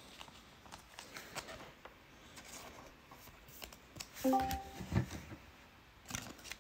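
Baseball trading cards being handled: soft sliding, rustling and light tapping of cards. A brief pitched hum comes about four seconds in, followed by a soft knock about a second later.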